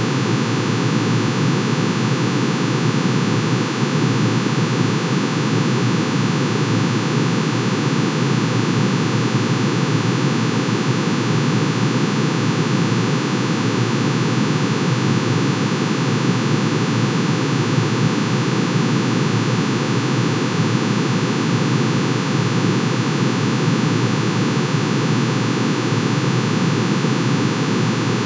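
Computer-generated sonification of manganese's atomic emission spectrum: many sine tones, one for each spectral line, summed into a steady, dense, noise-like drone that does not change.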